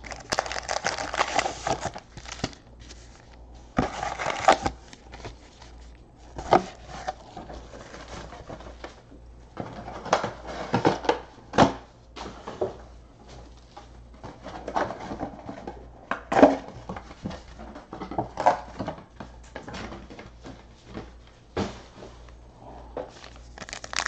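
Wrapped trading-card packs rustling and crinkling in the hands as they are pulled from a box and stacked, with scattered sharp taps as packs are set down on the table.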